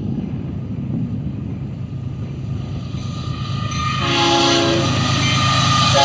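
Union Pacific diesel freight locomotive approaching with a low rumble. About four seconds in, its multi-chime air horn sounds, a chord of several steady notes, louder than the rumble and still sounding at the end.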